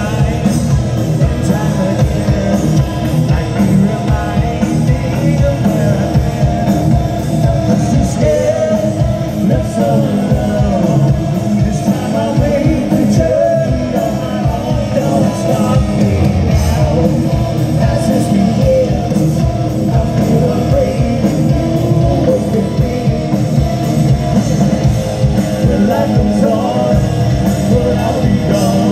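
Hard rock band playing live: electric guitars, bass and a drum kit, with a man singing over them, heard from the crowd through a large outdoor PA.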